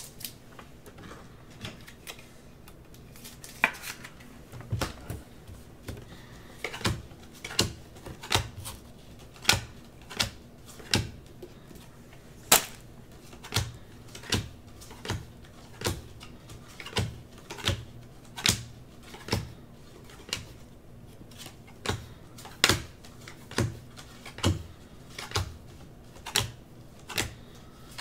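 Unparalleled football trading cards being flipped one at a time through a hand-held stack, each card giving a sharp click, about one or two a second. The clicks begin a few seconds in.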